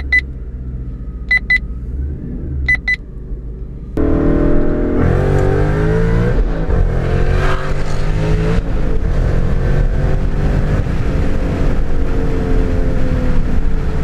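Supercharged Ford Mustang GT's V8 through a Corsa Extreme cat-back exhaust, heard from inside the cabin with the window down: a steady low cruise with a few sharp ticks, then about four seconds in a sudden wide-open-throttle pull. The revs climb, drop at a shift about six and a half seconds in, and climb again in the next gear, second into third.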